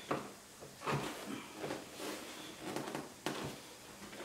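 Motorcycle seat being shifted and pressed into its locators: scuffing of the seat on the bodywork with several knocks spread about a second apart.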